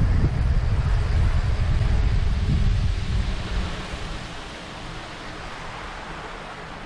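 Wind buffeting the microphone of a camera on a moving e-mountain bike: a heavy low rumble that eases off about three seconds in, leaving a softer hiss.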